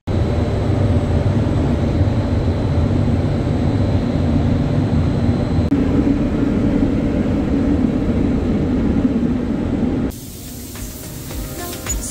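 Paint spray booth running while colour is sprayed: a loud, steady rushing hiss over a low rumble that starts suddenly. About ten seconds in it gives way to background music.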